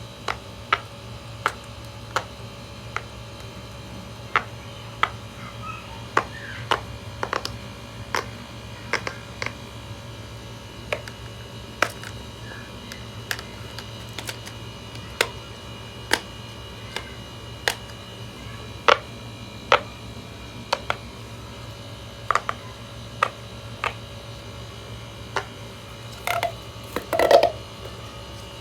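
Fidget toy clicking: sharp single clicks at irregular spacing, roughly one every second or less, over a steady low hum. Near the end comes a short, louder cluster of fuller knocks.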